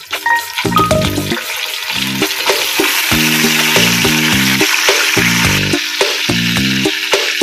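Blended red chili spice paste dropping from a jar into hot cooking oil in a frying pan, sizzling as it hits; the sizzle builds about two seconds in and stays steady. Background music with a repeating low pattern plays underneath.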